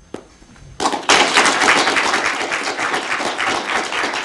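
Audience applause breaking out suddenly about a second in and carrying on as dense clapping, just after a single short knock.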